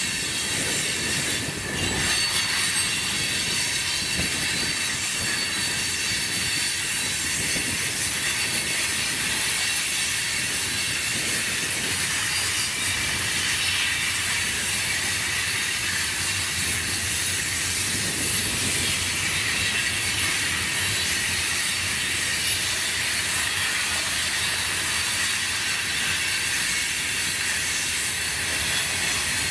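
A train rolling past: a steady rumble of wheels on the rails with a continuous high-pitched squeal or screech over it.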